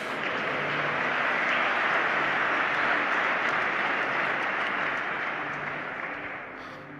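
A congregation applauding: dense, steady clapping that fades away over the last couple of seconds.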